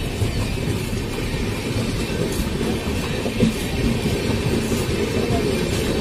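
Indian Railways passenger coaches passing close by at speed: a steady rumble of wheels on the rails with scattered clacks over the rail joints.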